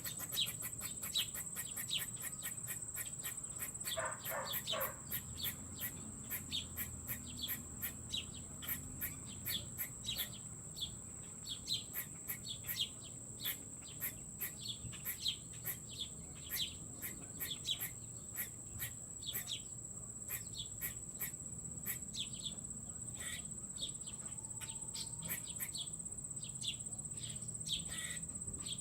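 Small birds chirping, short high chirps repeating every half second or so, over a steady high-pitched insect drone.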